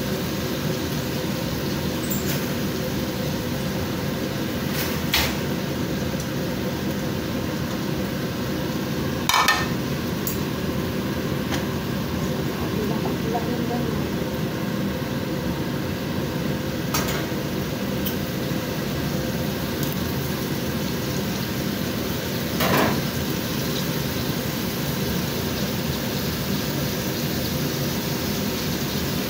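Chicken pieces sizzling steadily in hot oil in a frying pan, with a few short sharp knocks, the loudest about nine seconds in and again about twenty-three seconds in.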